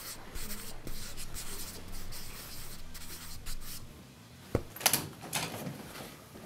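Quick scratchy strokes of a paintbrush on paper at an easel, with a sharp knock about four and a half seconds in and a few louder strokes just after.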